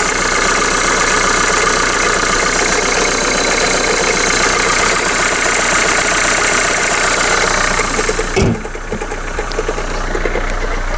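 Renault Kangoo engine idling after a cold start, with a loud rattling knock that the owner puts down to a failing alternator overrunning clutch. About eight seconds in the noise drops and gets quieter.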